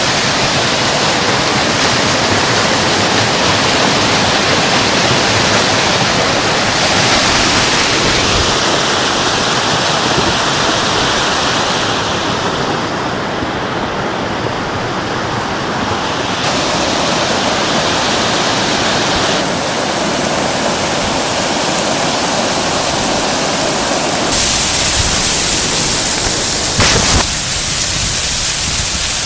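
Muddy floodwater and a debris flow rushing over a road in a torrential downpour: a loud, steady rushing noise that changes abruptly several times. Near the end, heavy rain.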